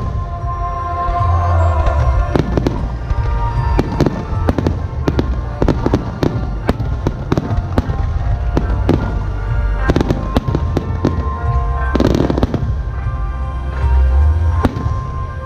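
Aerial fireworks shells bursting in quick succession: many sharp bangs, about one or two a second, over a continuous low rumble, with a dense crackling cluster about twelve seconds in.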